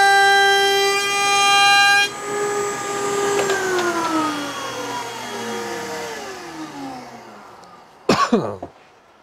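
Router in a router table, fitted with a 3/8 in roundover bit, running at full speed with a steady high whine that drops in level about two seconds in. It is then switched off and winds down, its pitch falling steadily for several seconds. Near the end there is a brief loud whoosh that falls quickly in pitch.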